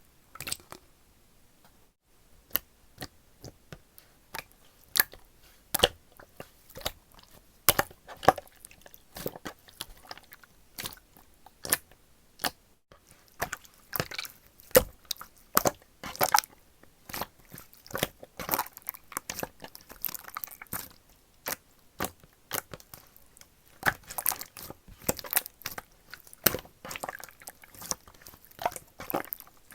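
Pink slime being worked by hand: irregular sharp clicks and pops, sparse at first and then coming several a second.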